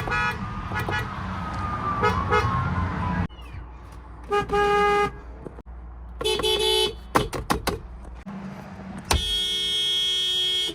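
A string of Nissan and Infiniti car horns, one car after another: short beeps first, then a blast of about a second, a burst of several quick taps, and a long held honk near the end.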